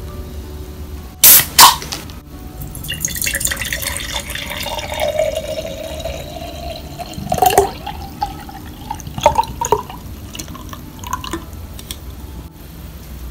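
Ring-pull can of Wong Lo Kat herbal tea opened with two sharp clicks, then the tea poured into a glass mug, the pouring tone rising steadily as the glass fills. A clink and a few light knocks follow near the middle and later.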